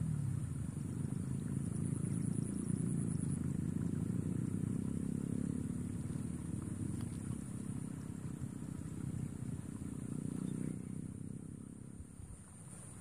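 A low rumble, steady at first and then fading away over the last couple of seconds, with a thin steady high-pitched whine throughout.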